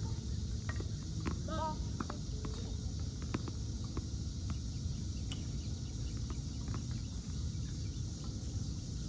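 Outdoor ambience: a steady low rumble with scattered sharp clicks, and a short chirping call about one and a half seconds in.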